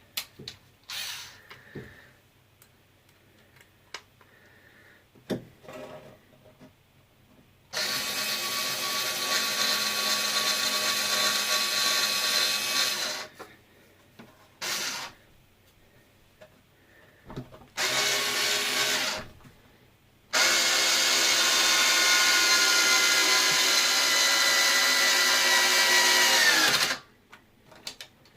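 Small handheld power screwdriver running in four bursts as it drives screws in, two long and two short; the last run dips in pitch as it stops. Light clicks of parts being handled come in between.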